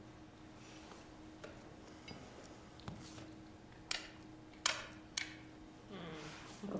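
A few sharp, separate clicks or taps, about a second apart, over a low steady hum in a quiet room, with a louder noisy swell near the end.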